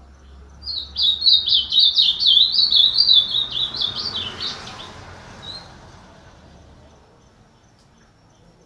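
Ultramarine grosbeak (azulão) singing one fast, warbled phrase of rapid whistled notes lasting about four seconds, starting about a second in, followed by a single short note.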